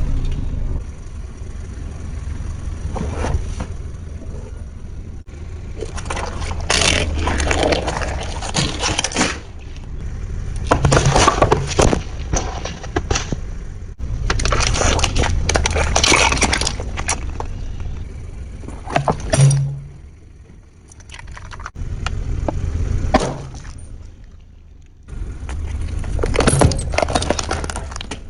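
Brittle objects cracking and crunching as they are crushed under a vehicle, in a series of bursts over a steady low rumble.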